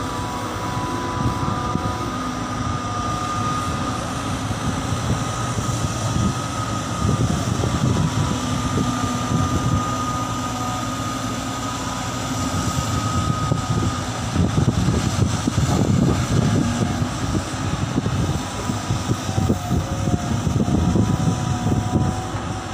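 Diesel engines of several Caterpillar hydraulic excavators working while digging and loading, a continuous low rumble that rises and falls under load. A thin, steady high whine runs over it, and the rumble grows louder in stretches during the second half.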